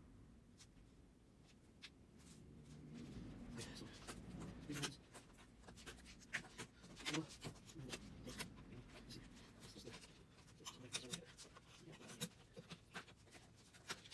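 Faint, irregular clicks and scrapes of hands and a small screwdriver working at an opened LED TV's circuit boards and ribbon-cable connectors.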